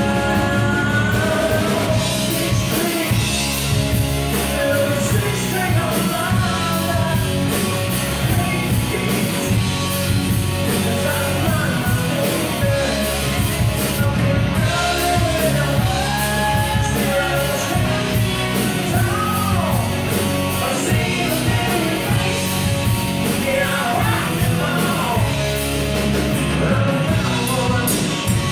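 Live rock band playing: a male singer's voice over electric guitars, electric bass and a drum kit, all amplified.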